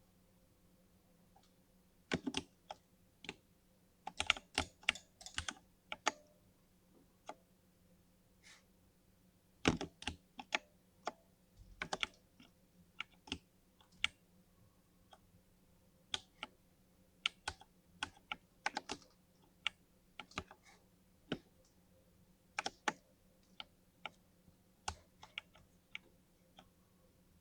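Mechanical keyboard fitted with lubed Cherry MX Silver linear switches being typed on: keystrokes clicking in irregular clusters with short pauses between.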